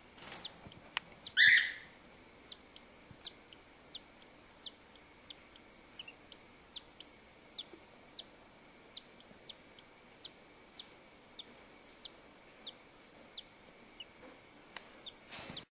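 Cockatiel chick peeping: short, high, thin peeps repeated at a steady pace of about one and a half a second, with one louder, longer call about a second and a half in.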